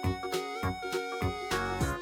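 Background music: an upbeat instrumental track with a bass line and a beat about twice a second.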